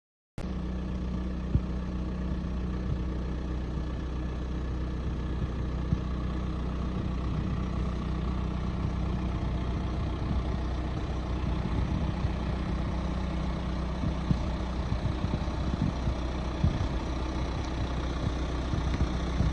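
A heavy engine idling steadily, with scattered short clanks and knocks over it. It starts abruptly about half a second in.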